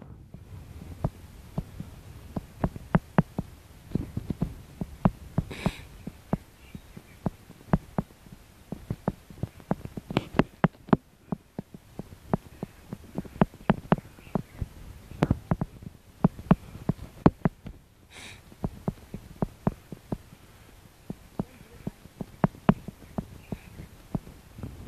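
Footsteps of a person walking on a path with a phone, heard as a long run of soft, irregular thumps about two to three a second, mixed with knocks from the phone being handled.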